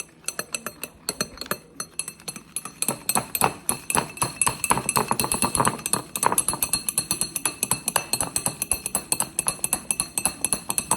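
Metal strainer used as a whisk, beating instant coffee against the inside of a cup: rapid, steady clinking, several strikes a second, with the cup ringing under the strokes.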